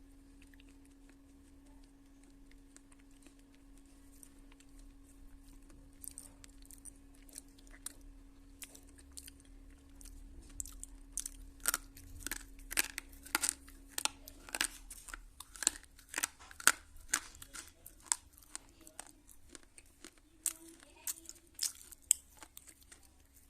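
Slate pencil being bitten and chewed close to the microphone: sharp, crisp crunches, scattered at first, coming thick and fast about halfway in, then thinning out near the end.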